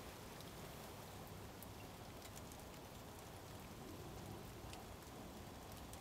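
Light rain falling on water: a faint steady hiss with scattered ticks of single drops.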